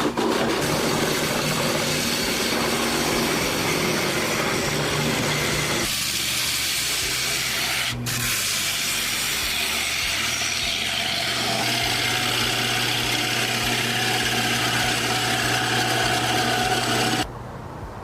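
Woodworking machinery running with a steady hum and hiss, changing abruptly twice and stopping suddenly near the end.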